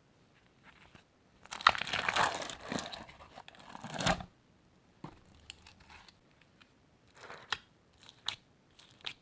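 Crinkling and tearing handling sounds, a dense crackly burst for about two and a half seconds starting a second and a half in, followed by scattered sharp crackles and clicks.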